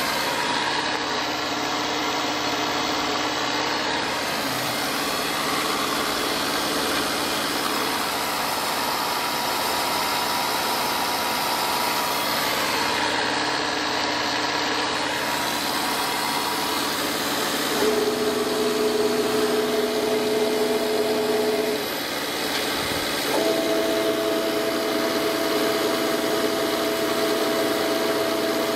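TOS FNK 2 universal milling machine running under power, a steady mechanical hum. About two-thirds of the way through, a whine of several steady tones comes in, stops briefly, then returns and holds.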